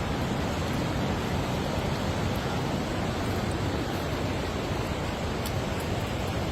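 Mountain stream water rushing steadily over rocks in a gorge: a continuous, even roar with no letting up.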